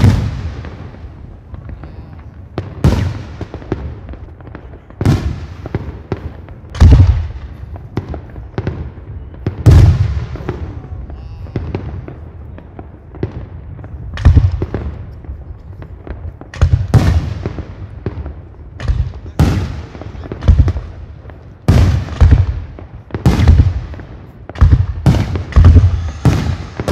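Aerial firework shells bursting one after another in a professional display: sharp bangs, each trailed by a low rumble. A short lull comes about halfway through, then the bangs come thicker and faster toward the end.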